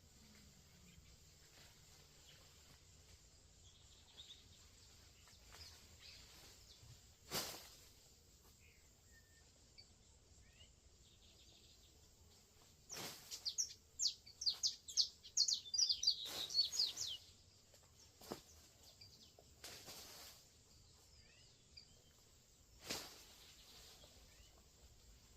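Songbird chirping in the open: a quick run of high chirps about halfway through, with scattered fainter calls. A few sharp clicks or snaps stand out, the loudest early on.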